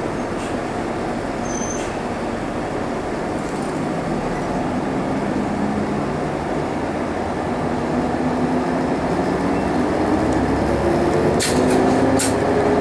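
Isuzu Erga diesel city bus driving, heard inside the cabin: engine and road noise, with the engine note climbing gradually as the bus picks up speed. A few sharp clicks or rattles near the end.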